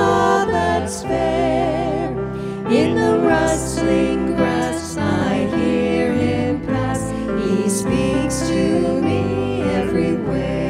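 Hymn sung by several women's voices with vibrato, accompanied by a Korg electronic keyboard and an electric bass guitar.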